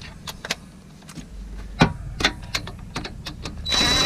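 Scattered clicks and taps of tools working the loosened transmission-mount bolts, with one louder knock about two seconds in; near the end a power tool starts running with a steady high whine, zipping a bolt out.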